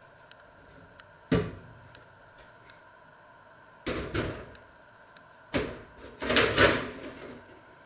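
Kitchen knocks and clatter: one sharp knock about a second in, then two clusters of bangs near the middle and toward the end, the last the loudest.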